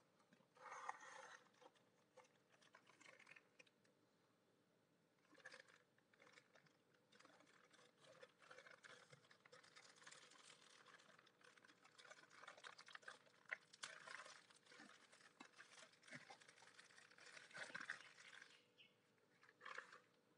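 Clear plastic parts bag and the crumpled brown paper inside it crinkling as hands handle and open it, in irregular bursts, with shorter rustles from a small cardboard box near the start.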